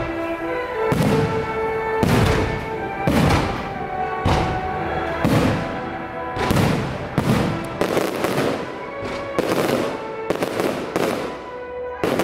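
Fireworks going off in quick succession, about a dozen sharp bangs roughly once a second, over music with long held notes.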